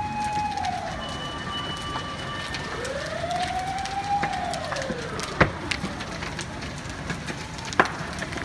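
Emergency vehicle siren wailing: one held tone that falls, then a slow rise and fall. Underneath is the steady crackling hiss of a burning building, with a few sharp pops, the loudest about five and a half and eight seconds in.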